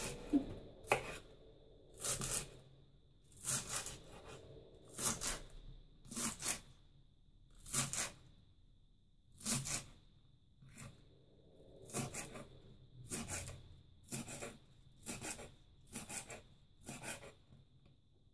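Knife slicing through spring onion stalks onto a wooden cutting board, one crisp cut roughly every second, the cutting stopping shortly before the end.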